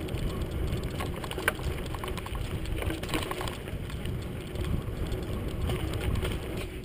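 Mountain bike ridden fast over a dirt singletrack: wind rumbling on the camera's microphone with the tyres and bike rattling over the bumps, and a few sharp clicks.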